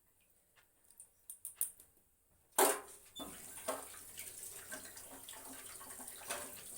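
A few light clicks, then a sharp knock about two and a half seconds in, and water running steadily after it.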